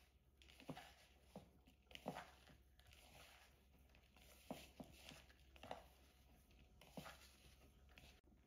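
Fingers rubbing and pressing a crumbly almond-flour and butter crumble mixture in a ceramic bowl: faint, irregular rustles and scrapes.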